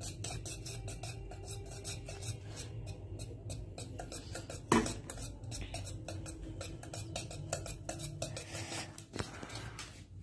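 A metal utensil stirring thick cake batter in a stainless steel bowl: quick, even scraping strokes against the bowl, about five a second, with one louder knock against the rim a little before halfway.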